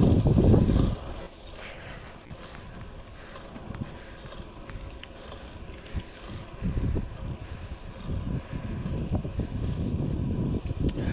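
Wind buffeting the microphone of a chest-mounted GoPro on a moving road bike. It is loud at first, drops away sharply about a second in, and builds back up from about seven seconds in.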